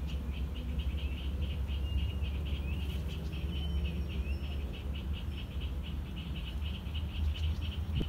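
Rapid, evenly pulsing animal calls repeating about five times a second over a steady low rumble, with a few short bird chirps about two to four seconds in.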